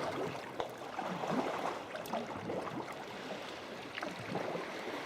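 Water splashing and gurgling around a sea kayak being paddled along the shore, a steady wash with many small splashes.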